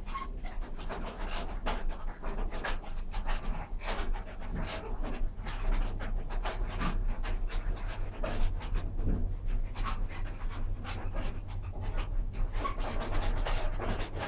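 A small wooden wip drainage windmill running calmly, heard from the room inside it: a steady low rumble with a quick, irregular run of soft whooshes and light knocks from the turning works.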